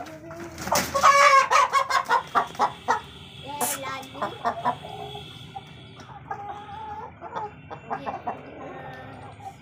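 Desi chickens squawking and clucking in a coop. A loud burst of alarmed squawking and wing flapping comes about a second in as a bird is caught and held by hand, then it settles into scattered squawks and lower clucking.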